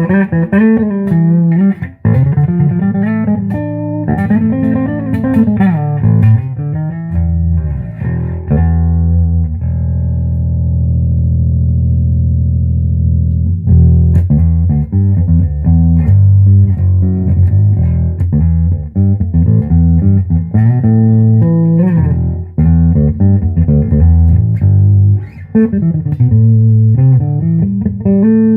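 Fender '57 Precision Bass played through a 1966 Ampeg B-15N Portaflex tube amp, heard through a cellphone's microphone: a run of bass notes with slides, a single note held and left ringing for a few seconds about ten seconds in, then more busy playing.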